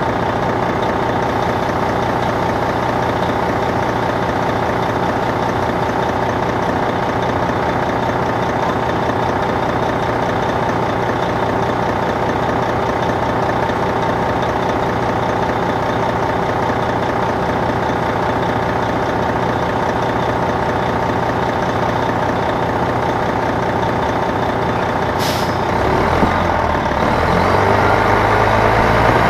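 Detroit Diesel Series 60 diesel engine of an MCI D4000 coach, heard from the rear of the bus, running at a steady speed. About 25 seconds in comes a short hiss of air, and near the end the engine gets louder and its note climbs as the bus accelerates.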